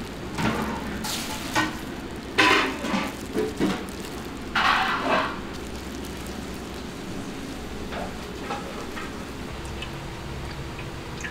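Wet rustling and squelching of seasoned wild greens being tossed and squeezed by gloved hands in a steel bowl, in a handful of short bursts over the first five seconds, then fainter. A steady low kitchen hum runs underneath.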